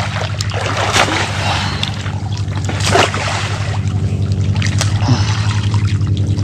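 Creek water sloshing and splashing around people wading chest-deep and pulling at submerged branches, with sharper splashes about a second in and again near the middle. A steady low hum runs underneath.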